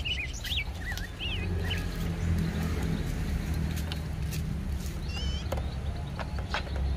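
Small birds chirping in short rising and falling calls, in a cluster near the start and again about five seconds in, over a steady low rumble. A few light clicks come from the plastic toy being handled and screwed shut.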